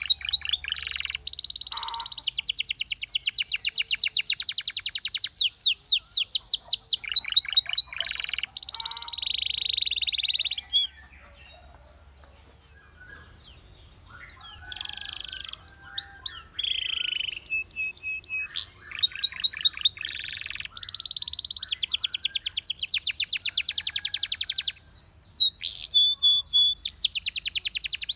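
Belgian canary singing long runs of fast repeated high notes and rolling trills, with a pause of about three seconds partway through.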